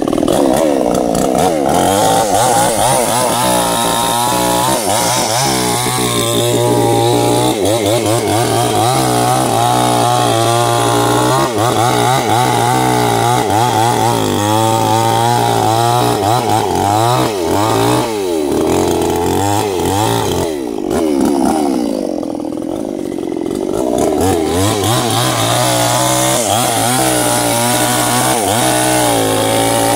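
Stihl two-stroke chainsaw running at high revs and cutting sengon wood, its pitch wavering as the chain works under load. About two-thirds of the way through the engine eases to a lower speed for a few seconds, then revs back up.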